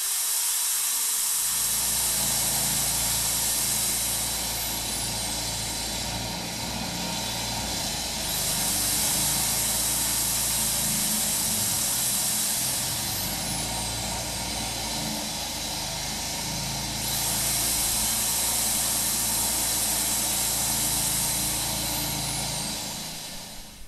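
Loud, steady rushing noise with a low hum beneath, swelling and easing every eight seconds or so and dropping away near the end.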